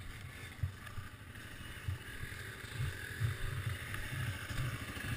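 Quad (ATV) engine running at low speed, muffled by the helmet camera's housing: a low, uneven rumble with irregular swells that grows a little toward the end, under a steady hiss.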